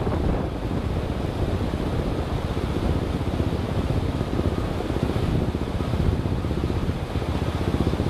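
Wind noise on the microphone over the steady running noise of a moving vehicle.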